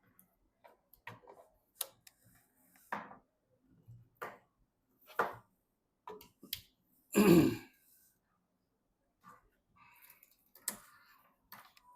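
Hands handling PC parts during assembly: scattered light clicks and taps, with one louder handling noise about seven seconds in.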